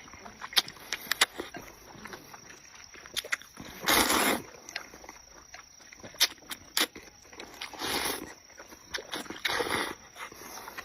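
Close-up eating sounds: chewing and mouth noises with scattered sharp clicks of chopsticks or a spoon against a bowl, and louder noisy bursts of chewing about four, eight and nine and a half seconds in.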